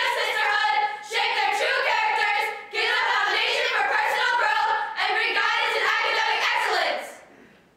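A group of women singing together in unison, unaccompanied, in phrases with short breaths between them. The singing stops near the end.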